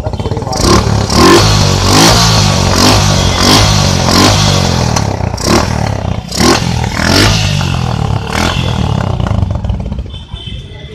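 Suzuki Gixxer motorcycle's single-cylinder engine revved in a quick run of throttle blips, about one every 0.7 seconds, settling back near the end.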